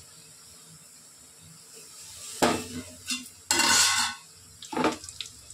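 Metal cooking pots and utensils clattering a few times, starting a little over two seconds in, with a longer noisy stretch of nearly a second in the middle.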